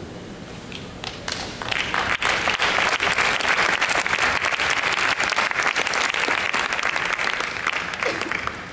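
Audience applauding: a few scattered claps at first, then steady clapping from about two seconds in that dies down near the end.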